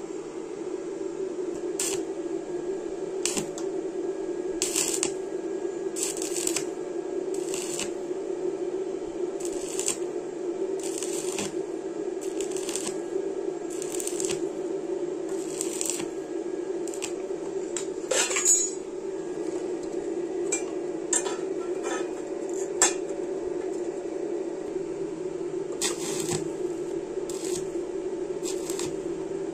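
Stick (arc) welding: short bursts of electrode arc crackle and spatter, about one a second, over a steady hum, with a sharper crack about two-thirds of the way through.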